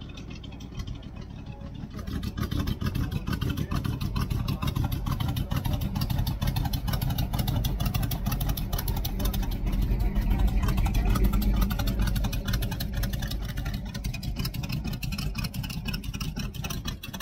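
Rat-rod pickup truck's engine rumbling as it drives slowly past. The sound comes up abruptly about two seconds in, is loudest a little past the middle, then eases as the truck moves away.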